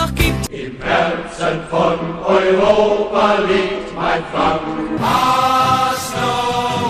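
Short excerpts of football club songs, sung over backing music. It cuts from one song to the next about half a second in, and again about five seconds in.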